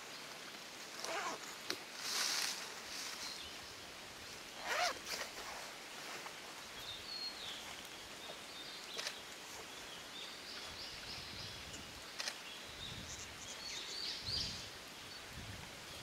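Japanese green woodpecker excavating its nest cavity with its beak: irregular short rasping scrapes of bill on wood, the loudest about five seconds in.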